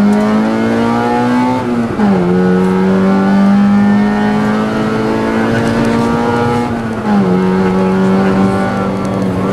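Rally car's engine heard from inside the cabin, pulling hard through the gears on a special stage: the pitch climbs and drops sharply at two upshifts, about two seconds in and about seven seconds in.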